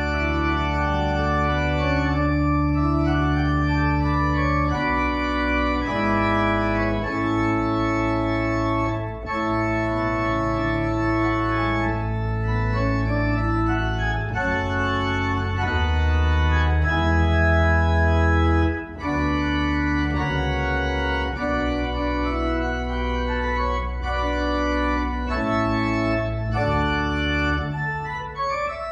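Organ music played on a keyboard: a slow piece in held chords whose notes sustain without fading, moving from chord to chord every second or so. It starts suddenly at the beginning, with a brief break about two-thirds of the way through.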